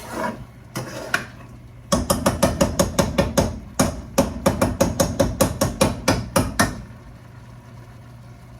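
A fast run of sharp knocks, about five a second, starting about two seconds in and lasting some five seconds with a brief break near the middle, as of rapid chopping or pounding while cooking.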